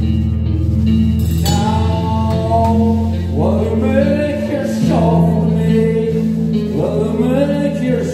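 Live rock band playing a song: a steady, droning bass and keyboard with electric guitar, and a male singer coming in about a second and a half in.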